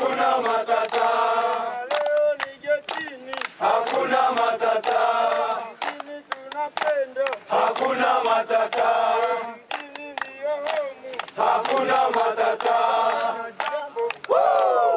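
A group of voices singing a chant in phrases of about two seconds with brief pauses between them, over frequent sharp clicks or knocks.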